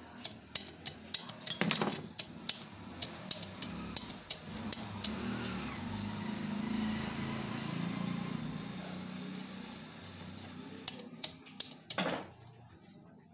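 Light metallic taps and clicks on the bobbin winder assembly of a household sewing machine as it is adjusted, several a second in quick runs near the start and again near the end. In the middle a steadier low rumble takes over for a few seconds.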